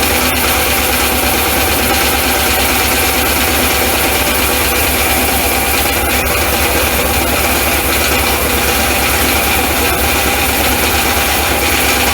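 Sawmill power-plant engine running steadily at constant speed, with an even low pulse, driving the mill's spinning shaft through the PTO.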